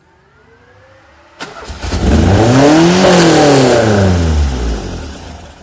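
Ford 2.0 SOHC Pinto four-cylinder engine on twin Weber 40 DCOE carburettors revving. It is quiet at first, then from about a second and a half in it rises to a loud rev that peaks midway and falls steadily back down.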